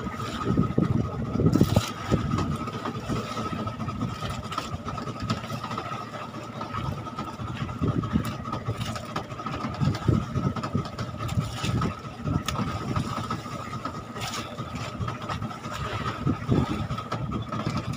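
Small fishing boat's engine running steadily at idle, with a constant high whine over an uneven low rumble.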